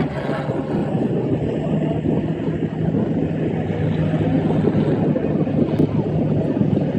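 A competition vehicle's engine running at steady revs, a low drone that holds one pitch throughout.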